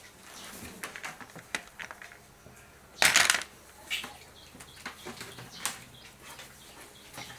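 Hands working on a drawing: fingers rubbing pastel crayon into paper and crayon sticks being handled, giving soft rustling and scattered small clicks, with one louder rustle about three seconds in.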